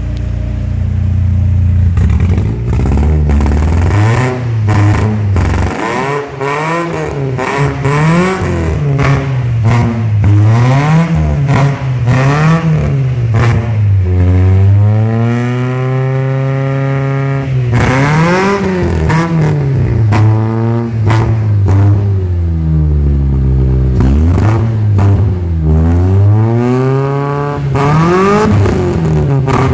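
Ford Ka's four-cylinder engine revved repeatedly through a new 2.5-inch cat-back exhaust with a Borla Pro XS muffler. It idles briefly, then comes a string of quick revs that rise and fall, one longer rev held high about halfway through, and more quick blips after it.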